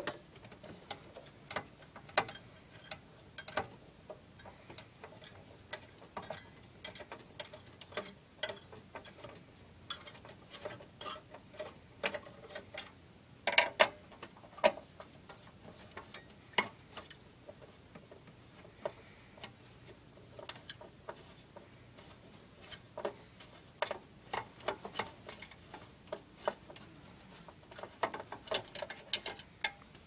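Irregular sharp clicks and taps of a screwdriver on the heatsink screws and the metal and plastic parts inside a desktop computer case, with a louder cluster of knocks about halfway through.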